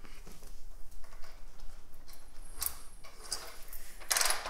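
Mechanical clicking and clatter from a 1997 Suzuki DR350's single-cylinder four-stroke engine as it is turned over without starting. The click is probably the camshaft's decompression mechanism and not a fault; the loudest clatter comes about four seconds in.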